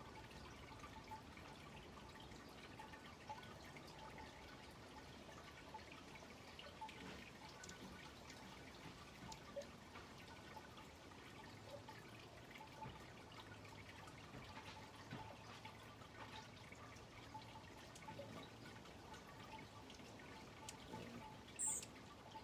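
Near silence: faint backyard ambience with scattered soft ticks and small chirps, and one brief, sharp high-pitched chirp near the end.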